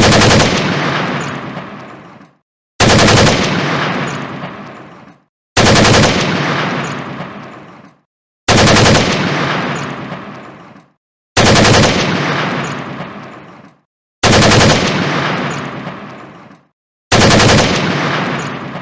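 AEK-971 assault rifle gunfire sound effect: seven short bursts of automatic fire, about one every three seconds. Each burst fades in a long echoing tail.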